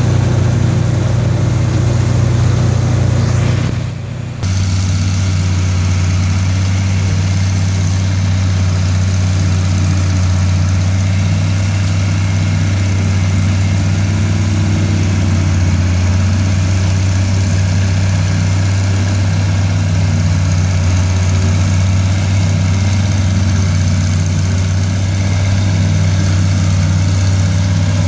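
International 806 tractor's six-cylinder engine running steadily under load, pulling and driving a forage harvester chopping corn. About four seconds in the sound dips briefly, then the engine note returns slightly lower and holds steady.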